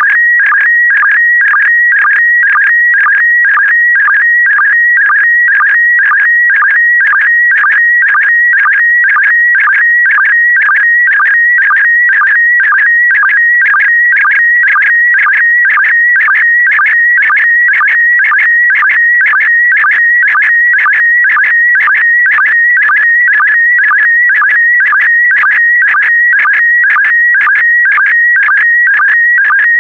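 Slow-scan TV (SSTV) image transmission in PD120 mode: a continuous electronic tone sitting mostly near 2 kHz, broken by a short dip about twice a second. Each dip is the line-sync pulse that starts the next pair of scan lines, and the tone between dips carries the picture's brightness and colour.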